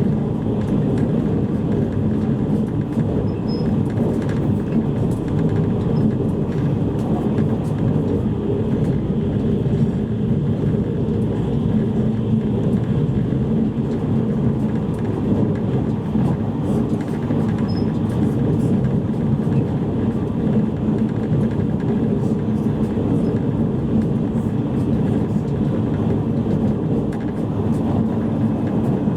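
JR East E653 series electric train running at speed, heard inside the passenger cabin of a motor car: a steady low rumble of wheels on rail and running gear.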